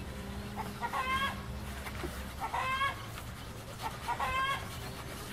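A chicken calling three times, each call short and about a second and a half apart.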